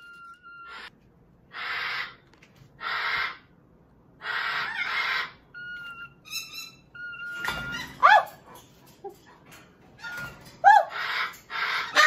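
Heavy Darth Vader-style breathing through a mask: rasping breaths about every second and a half, with short steady high whistle tones in between. In the second half come a few short falling whistled calls.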